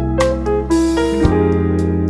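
Background music: a keyboard melody stepping over held low notes, with light percussion strikes.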